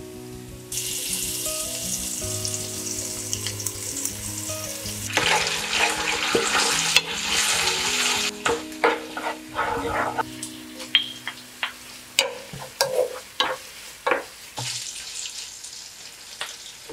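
Hot oil sizzling in a frying pan as soy sauce hits it with garlic and chili. About halfway through, a wooden spoon stirs and scrapes the pan in a run of sharp knocks, and the sizzle returns near the end. Soft background music plays underneath.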